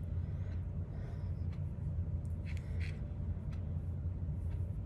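Steady low background hum of room tone, with a few faint soft rustles and clicks.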